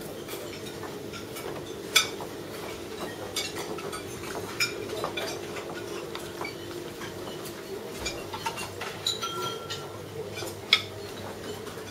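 Plates, serving dishes and utensils clinking at a self-service buffet, scattered clinks over a steady hum, with sharp knocks about two seconds in and near the end.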